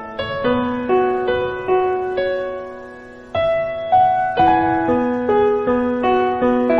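Soft piano music: a slow melody of single notes struck about twice a second, each left to ring and fade.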